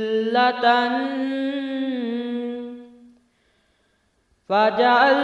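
A man chanting an Arabic qaseeda unaccompanied, holding the last syllable of a line on a long, wavering melodic note. The note fades out about three seconds in, and after a second of silence he begins the next line near the end.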